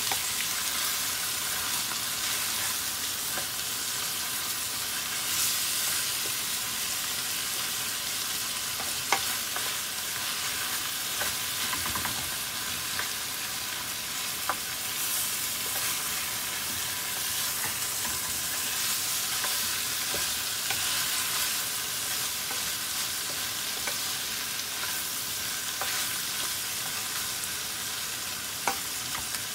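Flaked salted fish and onions sizzling in oil in a metal pan, stirred with a wooden spoon. The steady sizzle is broken by a few sharp knocks of the spoon against the pan.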